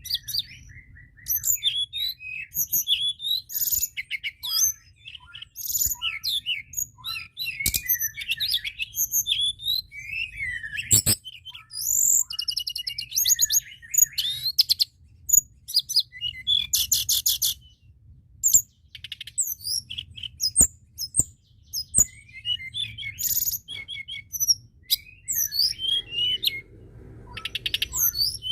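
Tledekan gunung songbird singing a varied, continuous song of quick high whistles, chirps and fast rattling trills, with short pauses between phrases. A few sharp clicks are heard about 11 and 21 seconds in, over a faint low hum.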